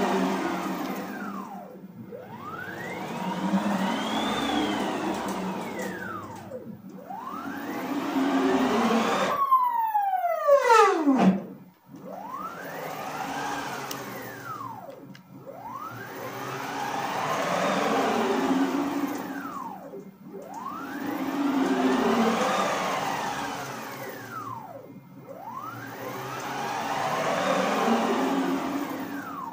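Nema 23 stepper motors on a home-built CNC router, driven by DM542 drivers at 36 V, whining through a run of rapid free moves. The pitch of each move rises as the axis speeds up and falls as it slows, about every four to five seconds. About ten seconds in, one move ends in a quick, steeply falling whine and a short silent stop.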